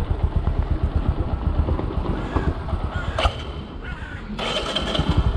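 Bajaj Boxer motorcycle's single-cylinder engine idling low with a rapid, uneven beat that fades after about three seconds; the rider feels it needs its idle speed raised. A short harsh burst of noise comes near the end.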